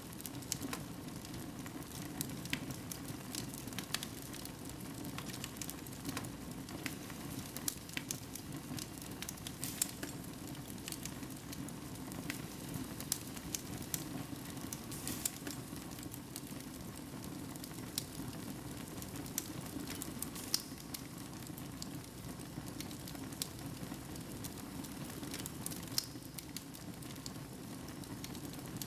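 Fire burning in a fireplace: a steady low rush of flame with frequent, irregular crackles and pops.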